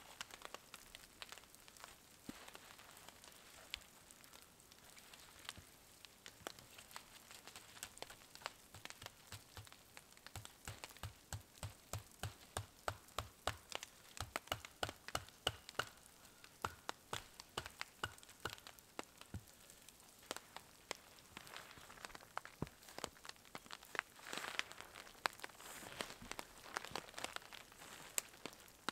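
Faint handling noise from pitching a tarp: rustling and many light clicks, with a steady run of about three clicks a second through the middle.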